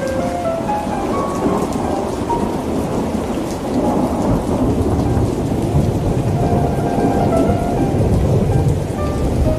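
Heavy, steady rain falling, with a low thunder rumble that swells through the middle of the stretch and then eases.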